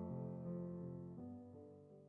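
Soft instrumental background music: sustained chords that change about a second in and then fade out.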